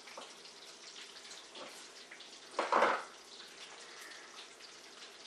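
Bacon frying in a pan, a faint steady sizzle, with a few light knife taps on a cutting board as hard-boiled eggs are sliced. One brief, louder noise about halfway through.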